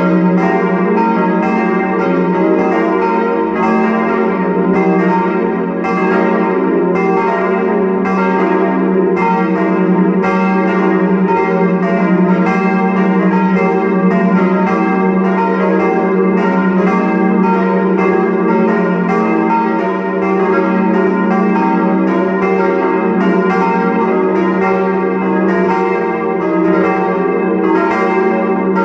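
Full peal of four steel church bells cast by Böhler of Kapfenberg in 1922, tuned to E-flat, F, G and B-flat, ringing together with their strikes overlapping steadily.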